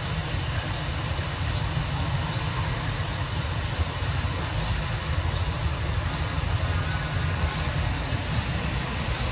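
Outdoor ambience: a steady low rumble under an even hiss, with a faint short rising chirp repeating about once a second.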